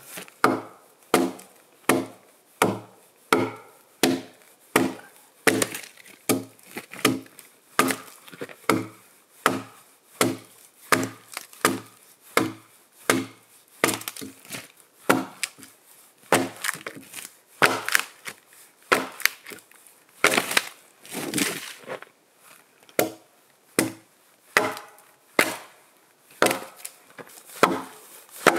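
Axe chopping into a pine log in a steady rhythm, about three strokes every two seconds. Each blow is a sharp woody knock with a brief ring, and a few longer splintering strokes come about two-thirds of the way through.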